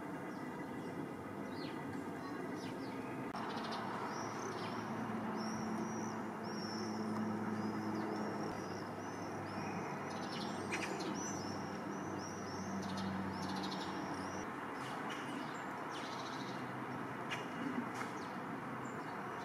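Small songbirds chirping repeatedly in the background with short, high calls, busiest in the first half, over a steady low hum. A few scattered soft clicks come later.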